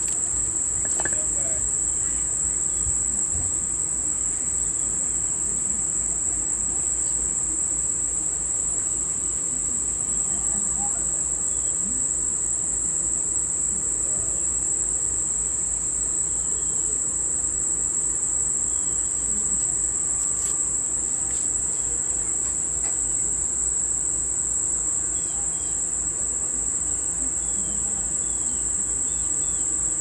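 A steady, high-pitched chorus of insects, likely crickets, trilling without a break.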